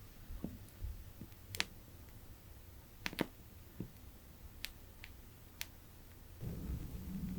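Wooden wick of a homemade candle crackling as it burns: sparse, sharp pops at irregular intervals, about eight in all. A low steady hum rises near the end.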